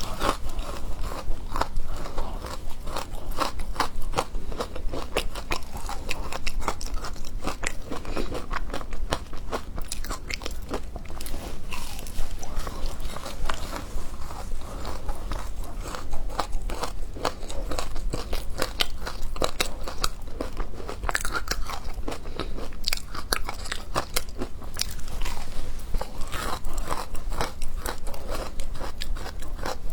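Close-up crunching and chewing of hard frozen matcha ice, a continuous run of sharp cracks and crackles as the ice is bitten and ground between the teeth.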